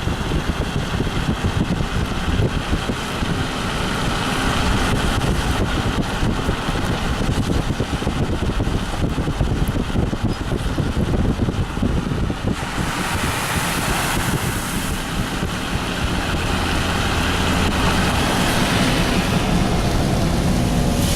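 A car driving along a flooded road, heard from inside: a steady rumble of engine and tyres with a hiss of water, the hiss growing louder for a few seconds about halfway through.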